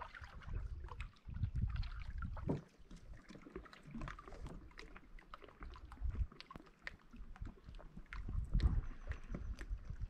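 Canoe being paddled: scattered small splashes, drips and knocks of paddle against hull, with irregular low rumbles underneath.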